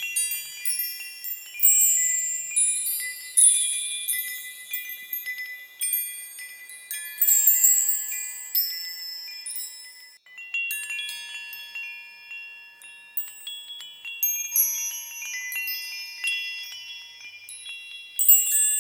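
High-pitched metal chimes ringing in irregular, overlapping strikes, each note ringing on and fading away. There is a brief lull about ten seconds in.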